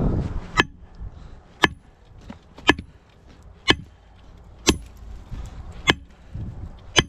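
Sledgehammer striking hard rock: seven sharp blows about a second apart, each with a short ringing clank.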